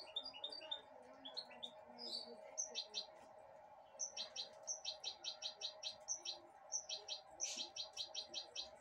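Goldfinch–canary hybrid (goldfinch mule) giving short high chirps, scattered at first, then in quick runs over the second half.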